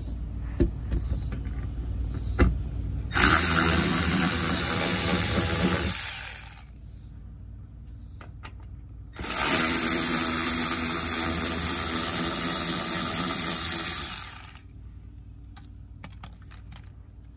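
Cordless electric ratchet running in two long spells, about three seconds and then about five, spinning out the bolts that hold a car's underbody skid plate. A few sharp knocks come before the first run.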